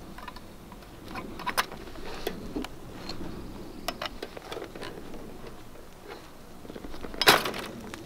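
Fencing pliers working barbed wire against a wooden fence post: scattered metallic clicks and scrapes as the wire is gripped and twisted, with a louder crunching scrape near the end as the wire is pulled tight.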